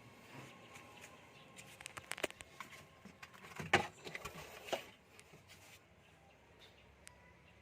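Scattered light clicks and knocks of tools and parts being handled during a fuel filter job, with a run of quick clicks in the first half and two louder knocks near the middle, then quieter handling.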